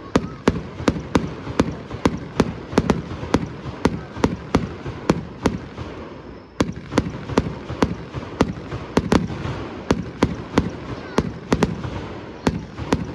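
Fireworks going off in a rapid, evenly spaced barrage, about two sharp bangs a second, over a steady crackle. There is a brief lull a little after the middle.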